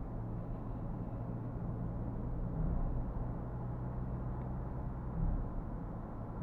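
Steady low rumble of tyres and engine heard inside the cabin of a Ford Everest SUV cruising on a highway.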